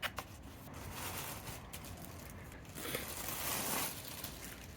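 Packaging being torn open and crinkled while a bike seat is unwrapped: a sharp click at the start, then irregular rustling that grows loudest for about a second near three seconds in.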